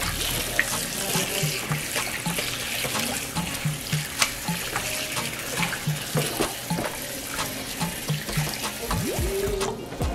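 Kitchen tap running into a sink while salmon fillets are rinsed under the stream, with small knocks of handling. The running water stops near the end.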